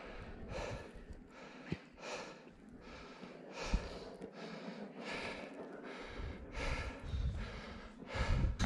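A person breathing hard and rhythmically close to the microphone, quick even breaths of exertion from scrambling up a steep rocky ridge. Wind buffets the microphone near the end.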